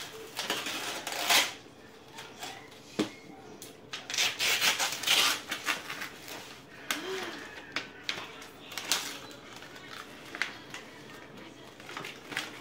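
Tissue paper rustling and crinkling in irregular bursts as a toddler pulls it out of a gift box and handles it.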